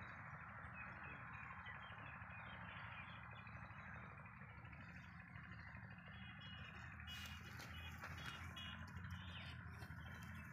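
Faint outdoor ambience with a steady hiss and distant birds chirping now and then. From about seven seconds in, crackly rustling noises join.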